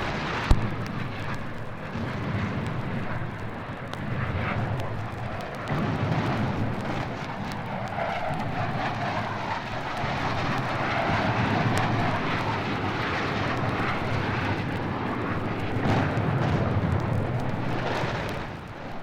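A steady, loud roar with one sharp click about half a second in, fading out near the end.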